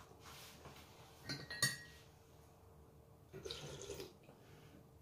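A metal spoon clinks twice against a ceramic cup, the second clink ringing briefly, then a short slurp from the spoon about three and a half seconds in.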